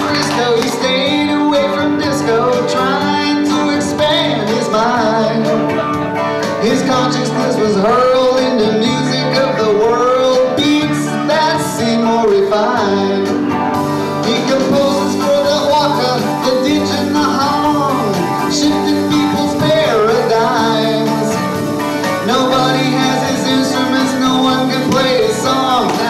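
Small live band playing a song in G, with an electric guitar and a singing voice over the accompaniment.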